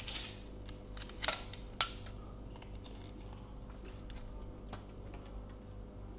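Retractable tape measure being pulled out and handled: a few sharp clicks and rattles between one and two seconds in, then a faint steady hum underneath.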